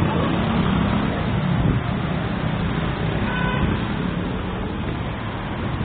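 Street traffic: a steady rumble of passing cars, with a short horn toot about three and a half seconds in.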